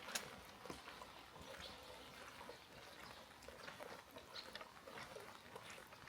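Faint rain ambience: a soft hiss with scattered small drips and ticks, one sharper tick just after the start.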